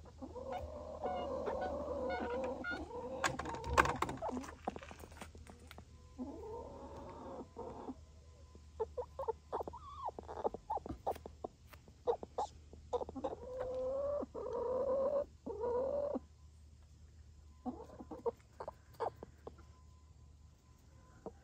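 Hens giving long, drawn-out wavering calls, several of them a second or more each, with short clucks and clicks in between.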